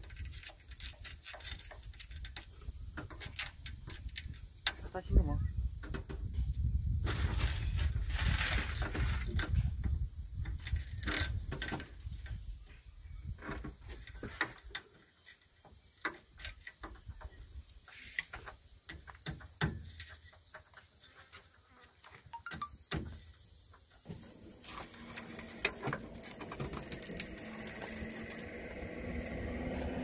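Hammer tapping a steel rod set against the edge of the broken windshield glass in a JCB 3DX backhoe loader's cab frame, chipping the glass out: irregular sharp taps and clicks. A steady high insect drone runs underneath until it stops after about 24 seconds.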